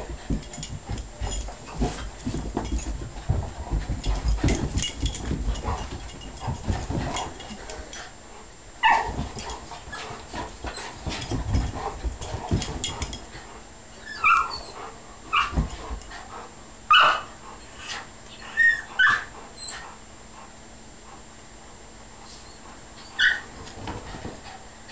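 Two dogs, a mini bullmastiff and a puggle, romping together: scuffling and thumps for the first several seconds, then a scattered series of short, high yips and whimpers through the rest.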